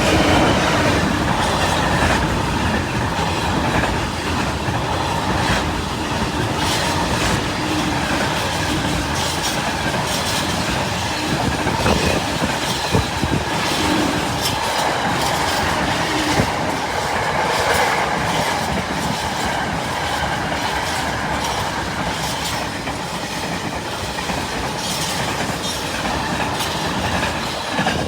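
Freight train hauled by a Class 66 diesel locomotive passing close by, its long run of wagons clattering over the rail joints. The noise comes up sharply at the start, holds steady, and falls away at the very end as the last wagons pass.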